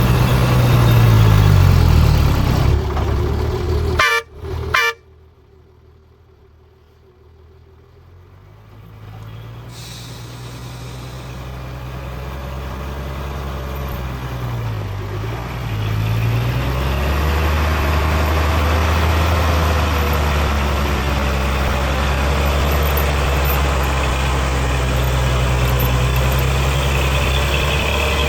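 Heavy truck's diesel engine running with a swing in revs, then two short horn toots about four seconds in. The engine sound drops away abruptly, then builds back up into a steady run.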